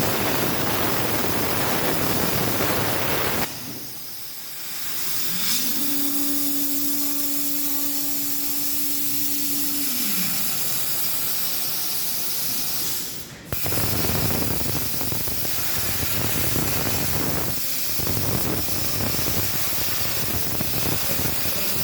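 CNC plasma cutter's torch arc hissing loudly, then cutting out about three seconds in, leaving a softer hiss. A drive motor whine rises, holds one pitch for several seconds and falls away as the machine moves. A sharp click follows and the loud arc hiss starts again.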